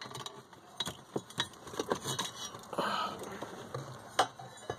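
Scattered clicks and light rustling as wiring and plastic parts under a car's dashboard are handled and moved aside, with a sharper click about four seconds in.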